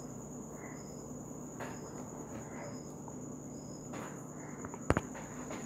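An insect chirps softly in short, high pulses about once a second over a steady thin high whine. A single sharp click sounds about five seconds in.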